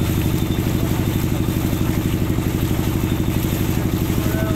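Motorboat engine running steadily underway, a rapid even chugging pulse.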